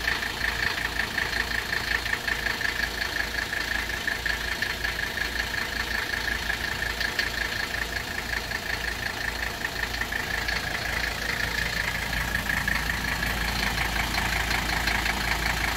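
Mercedes-Benz W126 300SD's five-cylinder turbodiesel idling steadily with a rapid, even diesel clatter.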